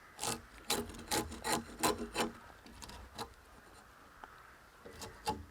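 A run of short scraping or rubbing strokes on wood, about three a second for the first two seconds, then a few scattered strokes; no motor is heard running.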